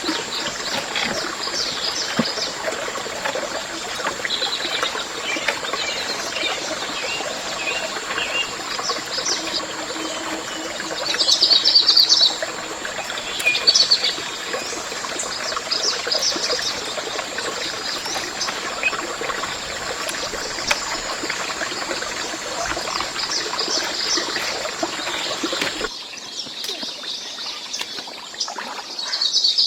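Birds chirping in short high bursts over a steady hiss, the chirping loudest about eleven and fourteen seconds in and again at the very end. A thin steady high tone runs under it until the background drops away abruptly near the end.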